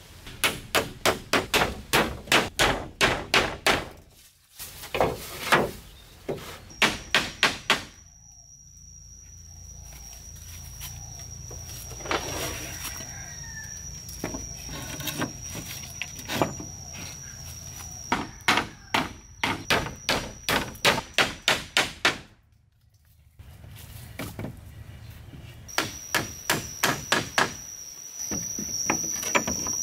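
Rapid, evenly spaced blows of a tool on wood, about three a second, in several bursts broken by short pauses. A steady high thin whine sounds behind some of the bursts.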